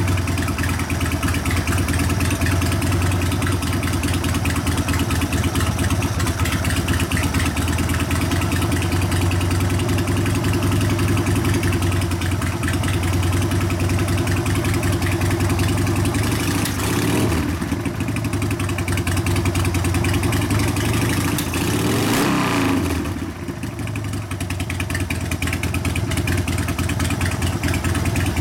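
Harley-Davidson Sportster 1200 Evolution air-cooled V-twin idling on a newly fitted 42 mm Mikuni HSR42 carburetor, blipped up and back down twice in the second half as the idle mixture is set. The engine is still a little lean right off idle.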